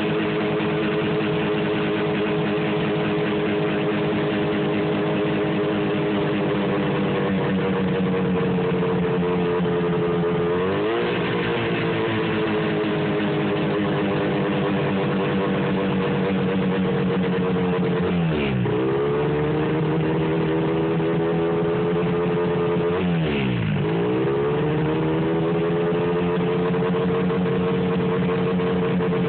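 1973 John Deere JDX8 snowmobile's 440 cc two-stroke engine idling roughly and unevenly. About a third of the way in and twice more later, the engine speed sags sharply and picks back up.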